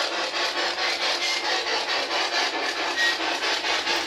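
Spirit box, a radio sweeping rapidly through stations, giving out hissing static chopped into pulses several times a second as it scans.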